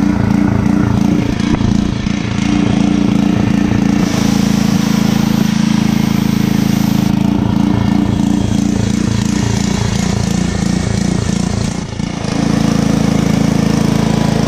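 Small gas-engine pressure washer running steadily under load while its wand sprays water on a truck's body and into the wheel well, rinsing off foam. The engine hum dips briefly near the end.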